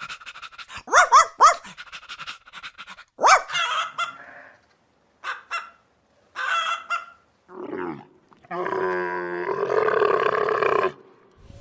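A dog barking in a string of short separate calls, then one longer, harsher call near the end.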